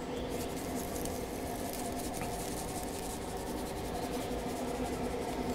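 Faint rustle of dry barbecue rub being shaken from a shaker bottle onto raw pork ribs, over a steady low hum.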